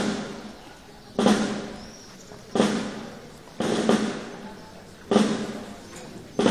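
A drum beaten slowly and steadily, one stroke about every second and a half, each stroke ringing out and fading before the next, about five strokes in all.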